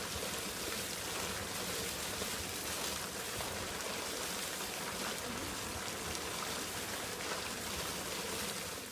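Partly frozen mountain stream running steadily under shelves of ice and snow, an even rush of flowing water.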